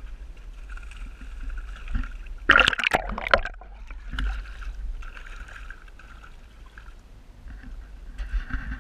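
Water splashing hard for about a second, a few seconds in, as a hooked largemouth bass thrashes at the surface beside the boat. A fainter steady hum starts and stops around it.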